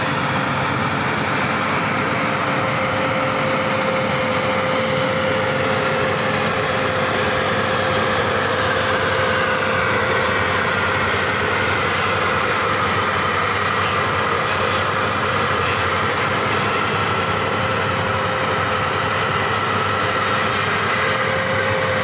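Maxxi Bimo 110 Plus rice combine harvester running steadily as it cuts and threshes standing rice: an even machine noise with a steady tone through it.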